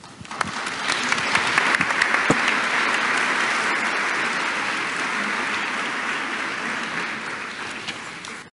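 Audience applauding, building over the first second, easing slightly later on, then cutting off abruptly near the end.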